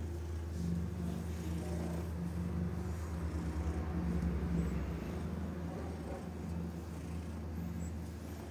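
Black-and-white domestic cat purring steadily while being stroked: a low rumble that swells and eases in roughly one-second cycles, loudest about four seconds in.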